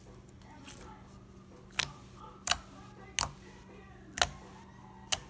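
Glossy slime squeezed and folded by hand, giving sharp clicking pops as trapped air bursts: five pops about a second apart, one of them doubled. A faint steady low hum runs underneath.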